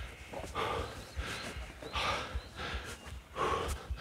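A man breathing hard and gasping, about six heavy breaths in four seconds, out of breath after running uphill.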